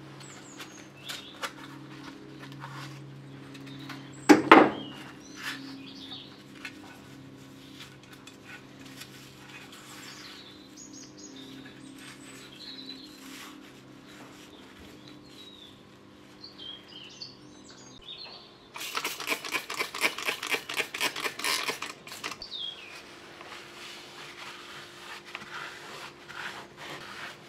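Thick old grease squelching and squeaking as gloved fingers scoop it out of a rusty tiller cover, after a sharp knock about four seconds in. Later comes a short burst of rapid scrubbing or wiping strokes, about five a second. A faint steady low hum runs under the first part.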